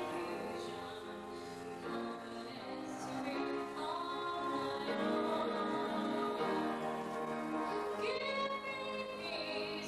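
A woman singing a solo into a microphone, holding long notes.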